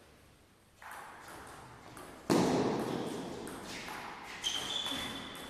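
Table tennis rally: the ball clicking off the paddles and the table in a run of quick, sharp ticks, with a heavier thud about two seconds in that rings on in the hall.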